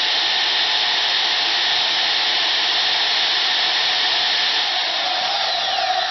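DeWalt DWM120K portable band saw running steadily at a fairly high speed setting, a loud, even motor and blade whine.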